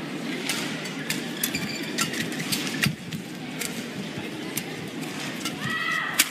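Badminton rally: sharp racket strikes on the shuttlecock, sometimes about half a second apart, over a steady hall background, with a couple of short squeaks near the end, typical of players' shoes on the court mat.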